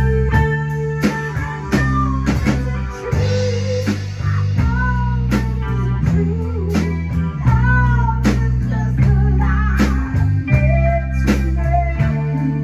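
Live blues band playing: electric guitar with bending notes over a strong bass line and a steady drum beat.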